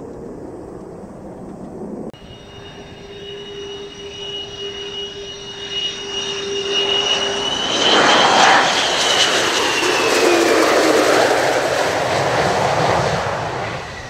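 Twin J79 turbojets of an F-4EJ Kai Phantom II on approach: a high whine over a roar that grows loud as the jet passes close. The whine drops slightly in pitch as it goes by.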